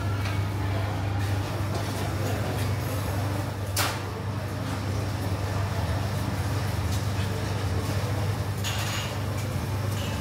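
Commercial kitchen noise: a steady low hum under one sharp clink of a metal spoon against a bowl or stone pot about four seconds in, and a few lighter clinks near the end.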